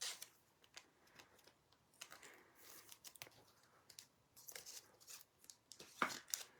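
Faint crinkling and clicking of football trading cards and a foil pack wrapper being handled, in short scattered rustles, with a sharper rustle near the end.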